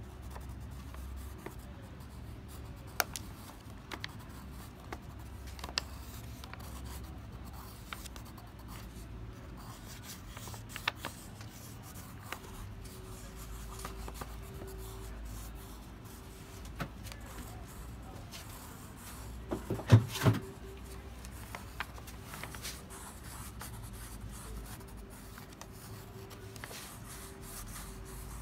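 Water-soluble wax crayon (Lyra Aquacolor) rubbing and scratching across watercolour paper in drawing strokes, with a few small taps. A brief, louder knock comes about twenty seconds in.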